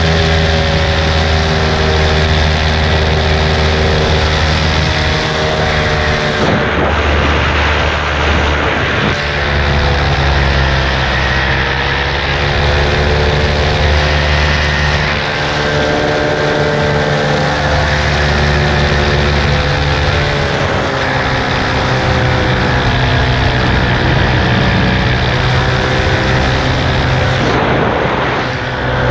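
Paramotor engine and propeller running in flight, a loud steady drone whose pitch shifts several times as the power changes.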